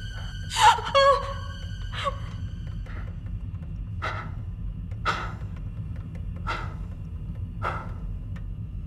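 A man groaning twice with a falling pitch, then gasping and drawing about five ragged breaths, over a steady low hum.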